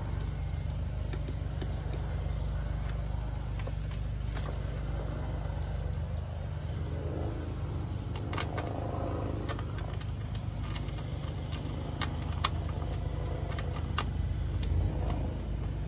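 Small metal clicks and taps as a bolt, washer and crimped ring terminal are handled and fitted into the sheet-steel body of a van, over a steady low rumble.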